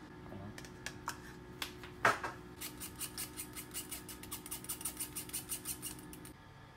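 Fine-mesh metal tea strainer being handled and tapped to sift Assam tea powder into a bowl. There are a few scattered clicks and a louder knock, then a quick run of light taps, about five a second, over a low steady hum. The taps and the hum stop together a little before the end.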